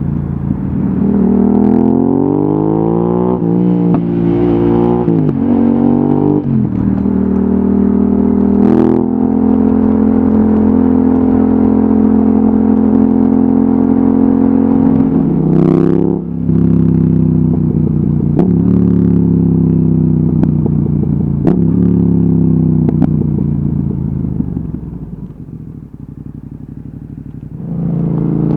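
Yamaha XSR700's parallel-twin engine through an Akrapovic exhaust, heard onboard: it accelerates through several gears with rising revs broken by quick shifts, holds a steady speed, then drops back with falling revs and downshifts. Near the end it settles to a quieter low run for a couple of seconds before revving up again.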